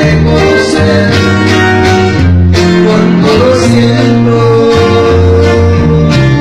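A live band plays acoustic guitars, with a man singing over changing low bass notes.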